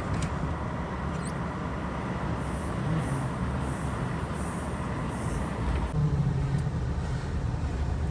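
Car being driven on a road: steady engine and tyre noise.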